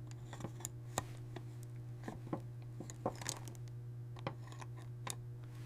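Light, irregular clicks and taps of small metal watchmaker's tools on a wristwatch case and movement during disassembly, over a steady low hum.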